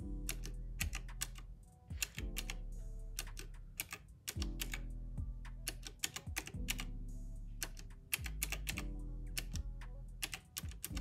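Round plastic keys of a retro-style calculator being tapped in quick, irregular clicks while totals are entered, over background music with slow sustained chords.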